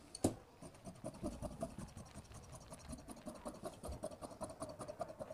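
Tailor's shears cutting through woven cloth on a table: a run of quiet, irregular snips with cloth rustling, after a single sharp click just after the start.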